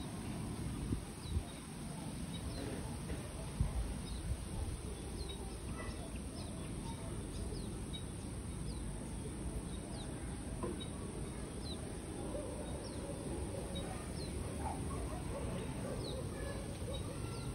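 A small bird giving short, high, falling chirps about once a second, over a steady low outdoor rumble.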